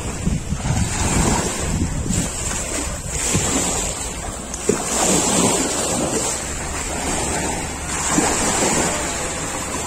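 Small waves washing onto a sandy beach in surges, with wind buffeting the microphone.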